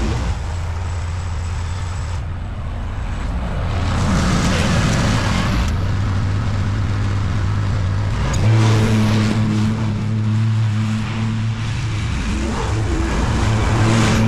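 Lawn mower engine running steadily, its note growing stronger and clearer about eight seconds in.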